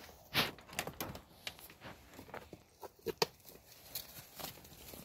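Chickens scratching and pecking through dry leaves and wood-shavings litter while foraging: an irregular series of short rustles and taps.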